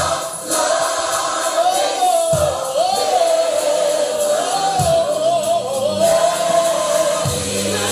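Gospel music: a sung melody line, held and wavering, over choir and band accompaniment.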